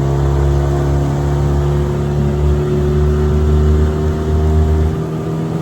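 Hidea 15 hp outboard motor running under throttle with an 11-pitch propeller, its pitch rising slowly as the boat gathers speed toward planing. A deep rumble underneath drops away about five seconds in.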